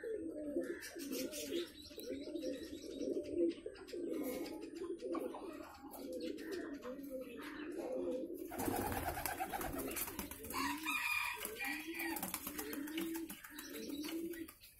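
Domestic chickens, roosters and hens, making soft low clucking calls while feeding. The calls are short and overlap, repeating steadily. A brief rustling noise comes just past halfway, followed by a few higher calls.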